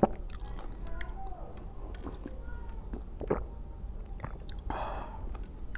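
Close-miked chewing and mouth sounds of someone eating, with scattered sharp clicks; the loudest click comes right at the start.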